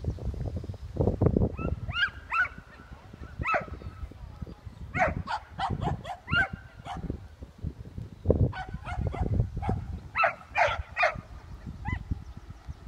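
Search-and-rescue dog barking in short, high barks, repeated in clusters of two to four through the stretch. Gusts of low rumble run underneath and are loudest about a second in and past the middle.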